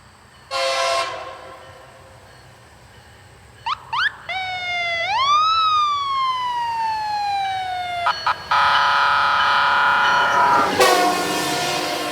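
Rail grinder work train sounding its siren and horn: a short horn blast, then quick rising chirps and a siren wail that climbs and slowly falls, ending in a long, loud horn blast.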